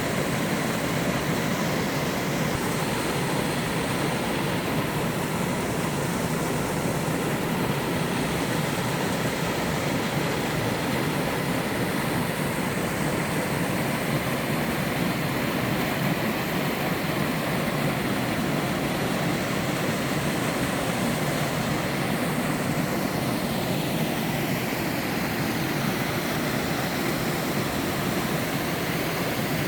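Waterfall rushing steadily, a dense even roar of falling water.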